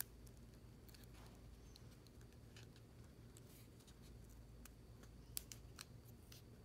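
Near silence with a few faint clicks and taps as a sticky foam strip is handled and pressed around a plastic wire-holder disc; the sharpest click comes about five and a half seconds in.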